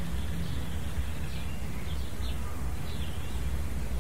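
Outdoor background ambience: a steady low rumble with a few faint, short bird chirps scattered through it.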